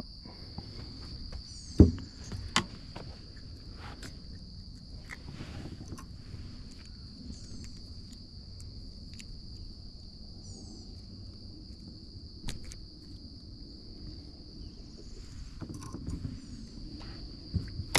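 Steady high-pitched drone of calling insects, with a few sharp knocks, the loudest about two seconds in.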